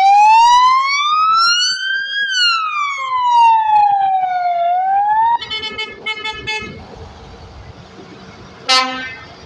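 Police car siren wailing, rising and then falling once in pitch, then switching to a rapid pulsing yelp for about a second and a half. A heavy truck's engine running follows, with a short horn blast near the end.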